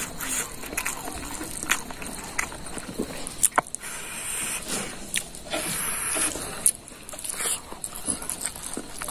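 Close-up eating sounds: a man chewing and smacking his lips over a mouthful of rice, with many short clicks, while his fingers work rice in a metal pan.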